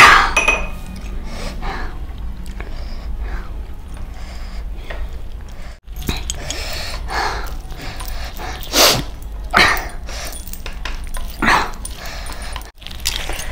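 Close-miked eating sounds of chicken curry and rice eaten by hand: wet chewing and lip-smacking, with a few louder smacks in the second half.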